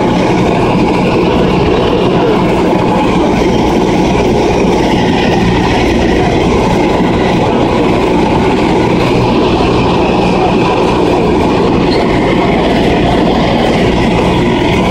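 Cessna 172's piston engine and propeller heard from inside the cabin in flight: a loud, steady drone with a low hum underneath.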